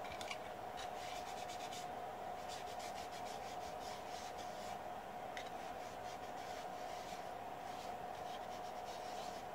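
Cotton wool wiping a TV wall-mount plate dry of cleaning alcohol: faint, repeated rubbing strokes over a steady background hum.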